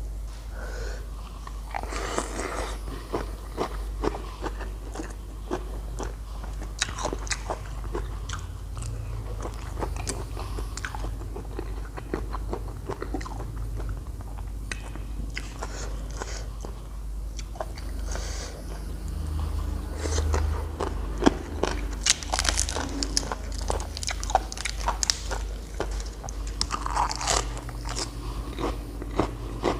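Close-miked eating: irregular biting, crunching and chewing of spicy Thai salad with pickled shrimp and crab, over a steady low hum.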